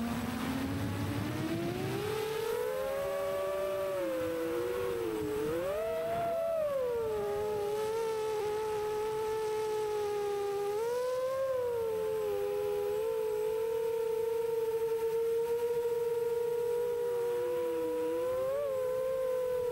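6-inch FPV quadcopter's iFlight Xing motors and propellers whining in flight, several close tones sliding up and down in pitch with the throttle. The pitch dips low at the start and climbs over the first few seconds, wavers around six seconds in, then holds fairly steady with small surges.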